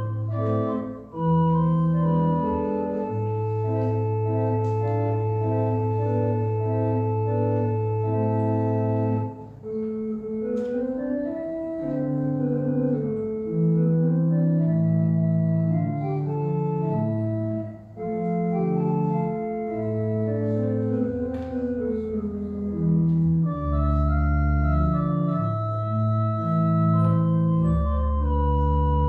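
Organ playing slow instrumental music: sustained chords over long held bass notes, changing every second or two, with a melody moving above.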